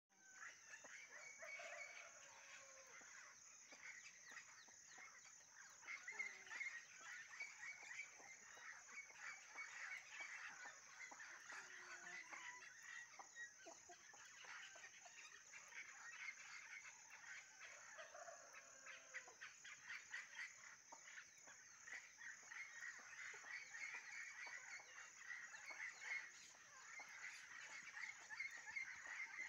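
Faint chorus of insects and frogs: a steady high-pitched drone with a fast, pulsing trill beneath it. A few lower calls fall in pitch, about a second in and again around eighteen seconds.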